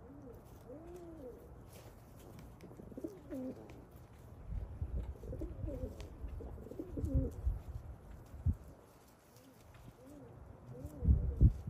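Pigeons cooing over and over, each coo a low rising-then-falling call. There are low rumbling thumps midway through, and a louder burst of them near the end.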